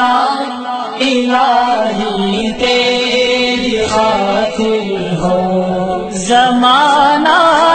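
Urdu devotional song (nasheed) sung in long, held notes that waver in pitch.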